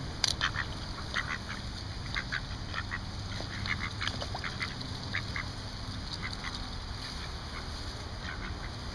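Mallard ducks quacking in short, scattered calls while they feed, with one sharp click just after the start.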